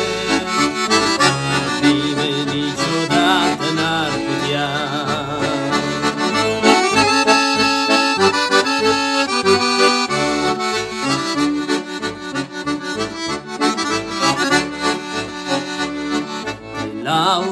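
Instrumental break in a Christian worship song, with no singing: a melody with vibrato over a stepping bass line.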